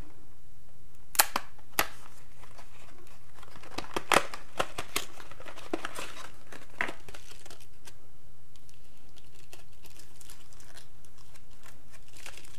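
Cardboard and plastic blister packaging of an SD card being pried and torn open by hand: crinkling with sharp cracks, the loudest about a second in and about four seconds in, dying down after about seven seconds. A steady low hum runs underneath.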